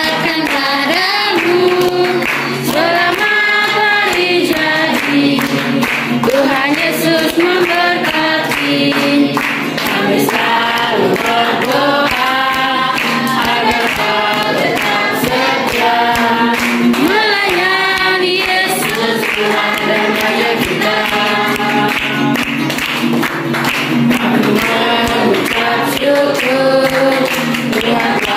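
A group singing a worship song together in unison, accompanied by a strummed small acoustic guitar.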